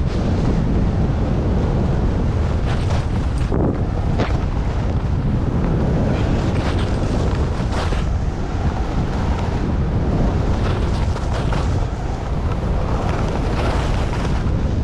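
Wind buffeting an action camera's microphone while skiing downhill: a steady low rumble, with repeated hissing scrapes of the skis cutting through snow in turns.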